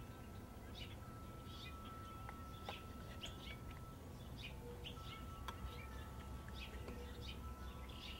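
Small birds giving repeated short chirps, several a second, over a low outdoor rumble and a faint steady hum.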